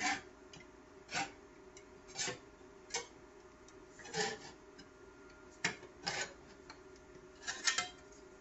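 Sheet-steel repair panel being bent and reworked by hand in a bench vise, knocking and scraping against the vise jaws in short separate clicks about once a second, with a quick cluster near the end.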